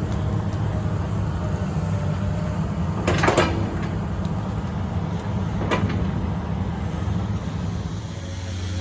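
An engine running with a loud low rumble, with two sharp knocks about three and six seconds in. Near the end the rumble settles into a steady hum.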